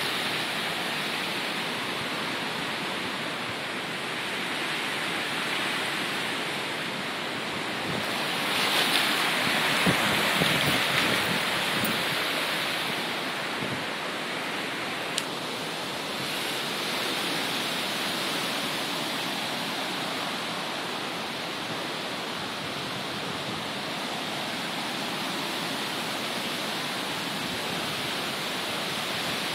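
Steady rushing of a creek in flood, its fast brown water running high over its banks. The rush swells for a few seconds around the middle, and there is one short click.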